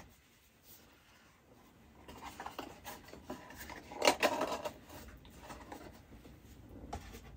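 Cardboard perfume packaging being handled and unpacked: irregular rustling, rubbing and scraping with a few light knocks, loudest about four seconds in.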